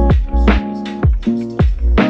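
Background music with a steady beat: a keyboard-led track with a thumping kick drum and sustained chords.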